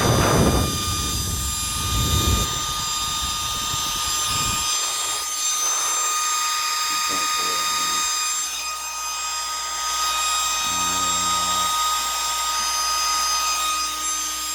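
1980s Gillette Supermax Pro 1500 hair dryer running on its cool setting at high speed: the steady high whine of its small fan motor, with a heavy low rush of air in the first few seconds. The motor's bearing has just been oiled, which the owner says didn't seem to help much.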